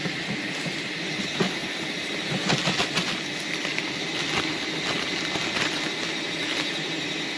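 Steady drone of a large swarm of wild honeybees buzzing, with a few sharp clicks or knocks, one about a second and a half in and a small cluster near three seconds.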